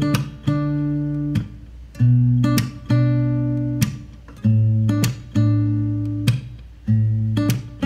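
Background music: an acoustic guitar strumming sustained chords, a fresh strum about every second and a half, as the instrumental opening of a song.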